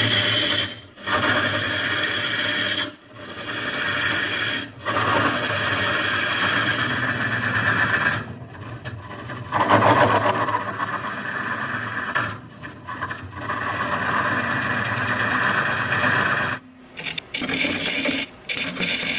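Lathe gouge cutting the inside of a spinning wood bowl, a steady hissing rasp as long shavings peel off. The cut breaks off briefly every few seconds as the tool is lifted and re-entered.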